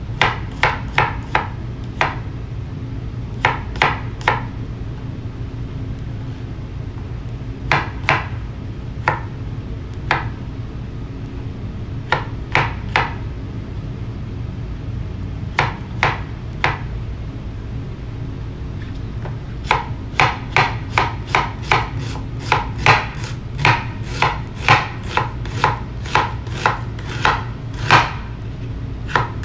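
Chef's knife chopping on a wooden cutting board: scattered groups of quick cuts, then from about two-thirds in a steady run of about two to three cuts a second as it slices through a red onion. A steady low hum runs underneath.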